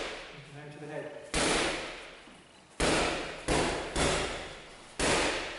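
Gloved left hooks landing on a hanging leather heavy bag: five heavy smacks, the third and fourth in quick succession, each trailing off over about a second.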